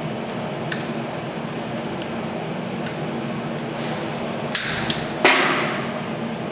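MIG welding set humming steadily while its torch is handled between welds, with a few sharp clicks and a short hiss about five seconds in.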